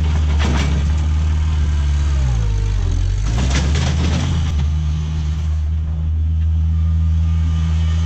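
New Holland L565 skid-steer loader engine running as the machine drives, the engine speed dipping about two seconds in and picking back up a second later. A couple of short rattles come through over the engine.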